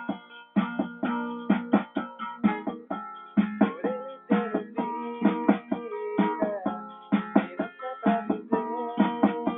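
Plucked string instrument, likely a guitar, played in quick picked notes with some chords, several notes a second.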